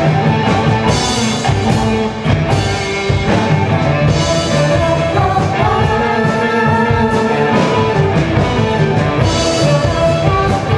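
Live ensemble music that blends a rock band (electric guitar, bass guitar, keyboard, drum kit) with Minangkabau traditional instruments such as talempong gong-chimes and gandang drum, with a voice singing held notes that bend in pitch.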